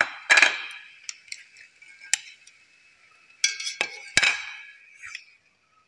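Chopsticks, a metal ladle and a plate clinking and scraping against a metal hot pot, each knock ringing briefly. The knocks come in scattered clusters, with a busy flurry a little past halfway.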